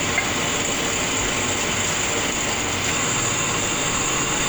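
Machinery running steadily: an even mechanical noise with a thin, steady high-pitched whine over it.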